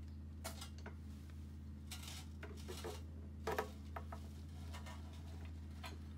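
Scattered metallic clinks and knocks, loudest about three and a half seconds in, as a Fordson Major's cast sump is lowered away from the engine on a trolley jack and timber packing, over a steady low hum.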